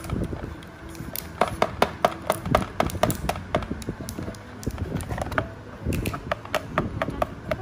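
A plastic toy axe from a children's carpenter play set striking a small block on a plastic toy workbench: a run of quick, sharp taps, a pause, then more taps.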